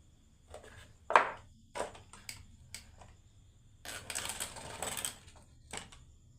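Marbles clacking and rolling down a wooden marble run: a sharp knock about a second in, a few lighter clicks, then about a second of rattling from about four seconds in, and one last click near the end.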